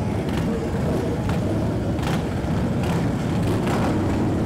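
Engines of a line of touring motorcycles running steadily at low speed as they roll past in procession.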